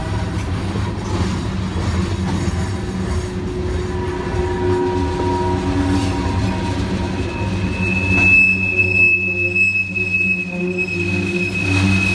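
Loaded freight cars of a passing manifest train, covered hoppers and tank cars, rolling by with a steady rumble from the wheels on the rails. From about seven seconds in, a high, steady wheel squeal rings out over the rumble, with a fainter, lower squeal a few seconds earlier.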